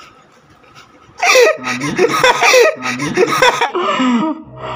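A man laughing loudly in several bouts, starting about a second in.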